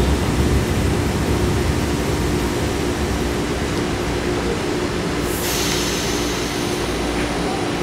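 BART train standing at an underground platform with its doors open: a steady low rumble with a constant hum. About five seconds in, a high hiss starts.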